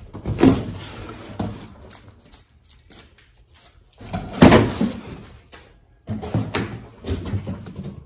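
Long cardboard shipping box being opened by hand, its flaps pulled back with scraping, rustling and thudding cardboard in several bursts, the loudest about halfway through.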